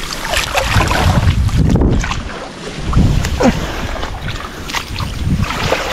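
Muddy water sloshing and splashing as people wade through a shallow weedy pond, with wind buffeting the microphone.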